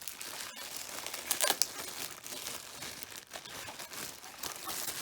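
Packaging crinkling and rustling as a new weather radio is unwrapped and pulled out of its box, with a louder crackle about a second and a half in.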